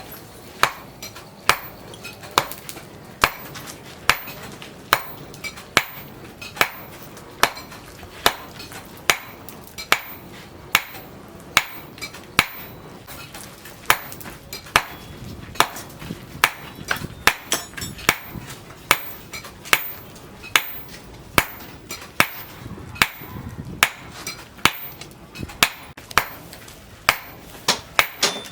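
Hand hammer striking rebar steel on an anvil while forging a knife blade: a steady series of sharp blows, a little more than one a second.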